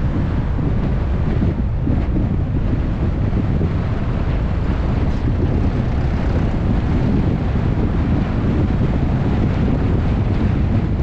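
Wind rushing over a GoPro camera's microphone on a moving vehicle, with road rumble underneath: a steady, dense noise heaviest in the low end.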